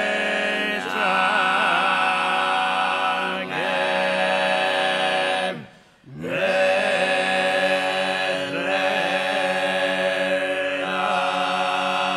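Sardinian canto a tenore: four male voices (boghe, mesu boghe, contra and bassu) singing a cappella, the lead line moving over a held chord and a steady low drone. About halfway through all the voices stop together for a breath, then the chord comes in again.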